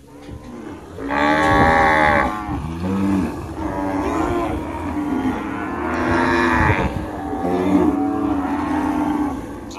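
A herd of red zebu cattle mooing, several long calls overlapping one another, with the loudest moos about a second in and again around six seconds in.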